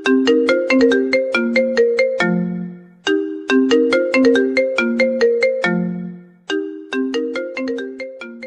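Mobile phone ringtone melody of short struck notes, a tune of a few seconds that repeats, breaking off briefly about three and six seconds in.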